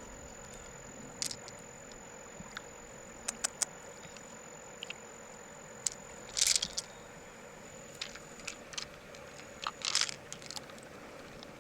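Scattered sharp clicks and short scrapes of hard objects being handled, with a louder scraping cluster about six and a half seconds in and another around ten seconds, over a faint steady high whine.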